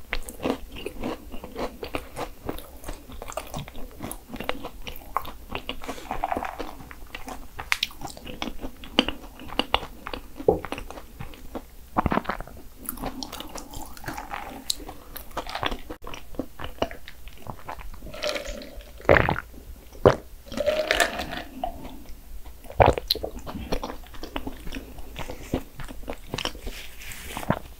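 Close-miked eating: biting into Portuguese egg tarts with crisp, flaky pastry that crunches and crackles, then chewing, with many sharp crackles.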